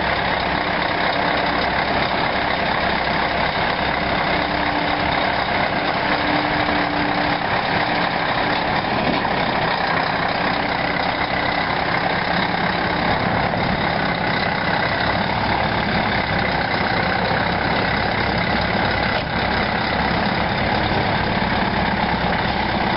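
Scania 164L tractor unit's 530 hp 16-litre V8 diesel running steadily at low revs as the truck manoeuvres slowly.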